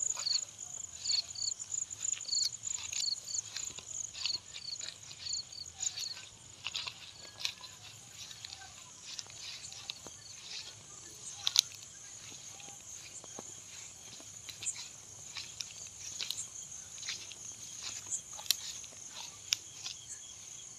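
Night chorus of crickets: a steady high-pitched trill, with a second insect chirping in regular pulses about three times a second during the first six seconds. Footsteps swish through grass, with scattered sharp snaps and clicks; the loudest comes about eleven and a half seconds in.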